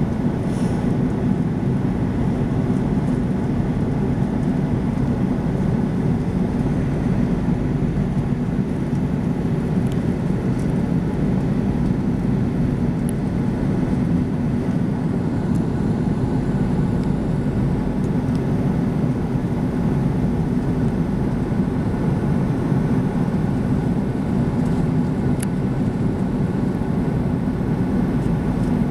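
Steady cabin noise of a four-engine jet airliner in cruise: an even, low rumble of engines and airflow that does not change, with a few faint clicks.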